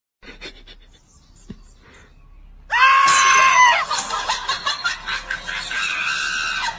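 A loud, high-pitched scream about three seconds in, held for about a second and then falling away, followed by repeated bursts of laughter.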